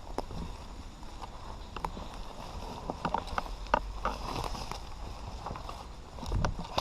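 Scattered light clicks and snaps from movement and gear handling, over a low rumble of wind or handling on the microphone, with a dull thump near the end.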